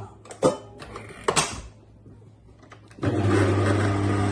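A few knocks and clatters, then about three seconds in an electric blender switches on and runs steadily with a motor hum, mixing butter, sugar, eggs and flour into sponge batter.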